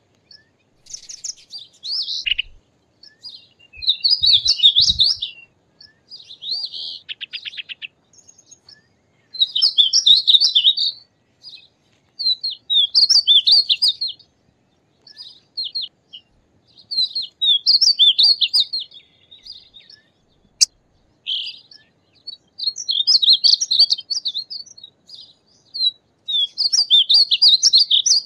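Painted bunting singing: high, quick warbled phrases about a second or two long, repeated every few seconds with short pauses between.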